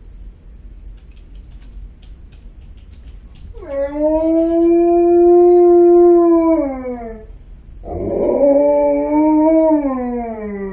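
Alaskan Malamute howling twice to demand attention. The first howl swoops up, holds steady and falls away at its end. The second follows after a short break and slides down in pitch as it ends.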